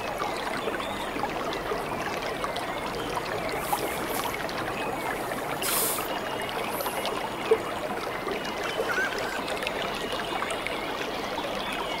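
Small forest waterfall cascading over rocks: a steady rushing of water, with a few brief hissy bursts in the middle.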